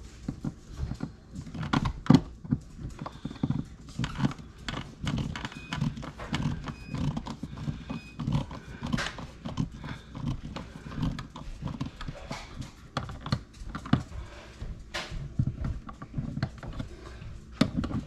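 Irregular hollow knocks and taps, several a second, from hand work at an electrical switch box set in a drywall wall, with one louder knock about two seconds in.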